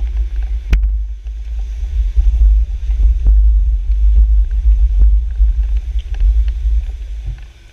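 Loud low rumble on a bicycle handlebar-mounted camera's microphone as the bike rolls slowly over stone paving, with a few sharp knocks, the loudest about a second in. It cuts off abruptly at the end.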